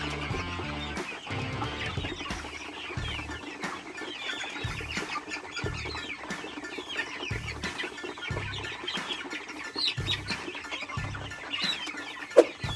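A flock of six-week-old Dominant CZ pullets chirping and clucking while they feed, over background music with a steady bass beat. One short, louder sound stands out near the end.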